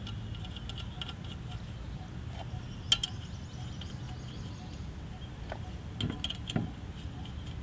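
Scattered light metallic clicks and clinks of wheel nuts being fitted back onto a car's spare wheel studs, with a sharper click about three seconds in and a few more near the end, over a low steady background hum.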